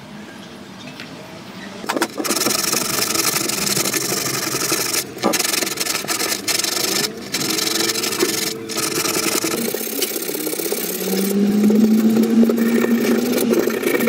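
Hand sanding with sandpaper on a flat stone: rapid rasping back-and-forth strokes that start about two seconds in, with a few short pauses. A steady low tone joins the rubbing over the last few seconds.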